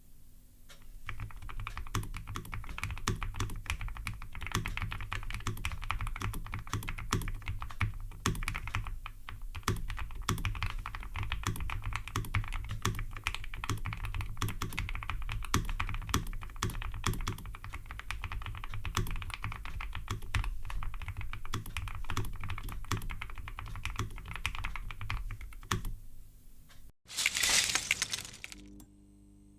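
Continuous typing on an Iqunix Magi96 Pro low-profile mechanical keyboard with Kailh Gold Red linear switches, an extremely muffled sound from its heavily foamed aluminium case. The typing stops about a second before a brief, loud burst of noise near the end.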